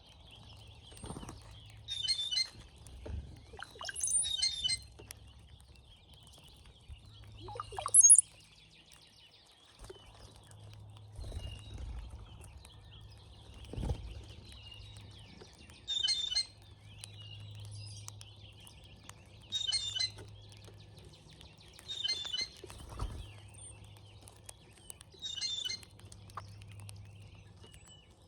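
Brown-headed cowbirds at a feeder giving their gurgling songs, a burst every few seconds, one of them ending in a thin high whistle, the loudest sound. Low thumps come in between.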